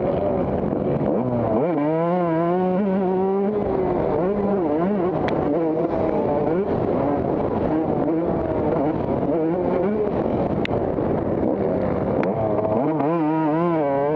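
Motocross dirt bike engines racing, the pitch rising and falling as riders work the throttle, with one bike revving loudly close by about two seconds in and again near the end.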